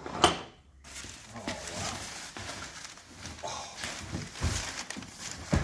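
Crumpled newspaper packing rustling as a boxed toy is dug out of a plastic tote, with one sharp knock near the start.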